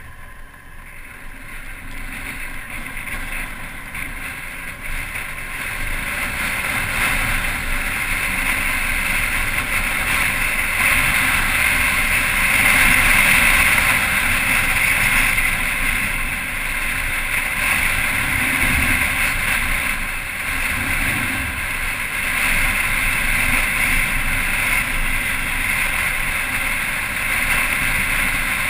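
Motorcycle on the move, heard from a camera mounted on the bike: steady engine and wind rush that grows louder over the first ten seconds or so, then holds.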